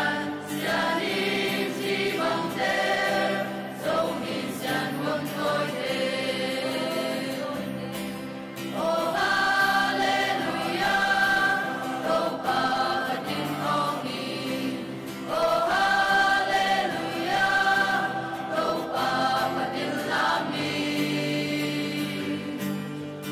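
Mixed church choir of men, women and children singing a gospel song, with long held chords; the singing swells louder about nine seconds in and again about sixteen seconds in.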